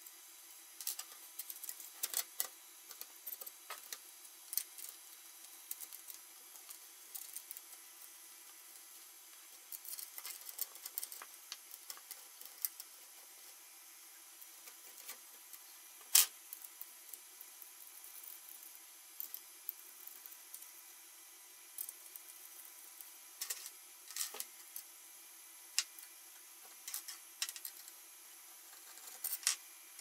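Scattered light clicks, taps and small rattles of hardware being handled during PC assembly, irregular throughout, with one sharp, louder click about sixteen seconds in.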